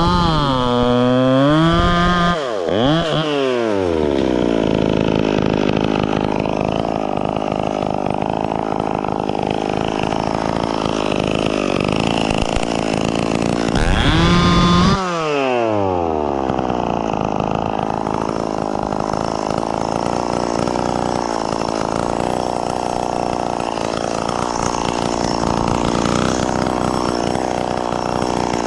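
Stihl MS 170 two-stroke chainsaw cutting into a tree trunk, its engine pitch swinging up and down, then settling to a rough idle. About halfway through it is revved once with a sharply rising pitch and falls straight back to idle.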